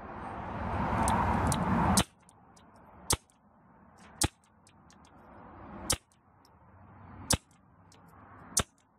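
Suppressed Walther .22 pistol firing six single shots at an uneven pace, about one to one and a half seconds apart.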